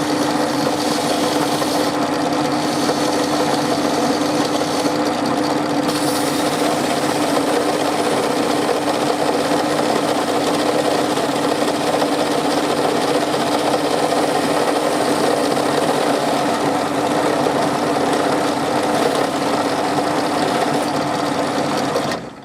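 Pillar drill motor running steadily, spinning a small wooden top while sandpaper is held against it to sand it to a point, with a hiss of sanding over the motor's hum. The drill is switched off near the end and the sound stops.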